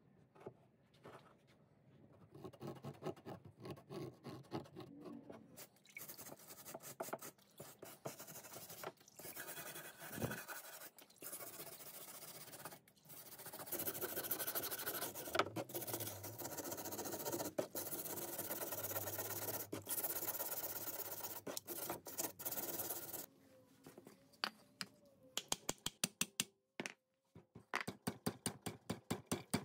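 Wire brush scrubbing the rusted steel of an old air rifle by hand, in uneven strokes that become steadier and louder about halfway through. Near the end a quick run of light ticks.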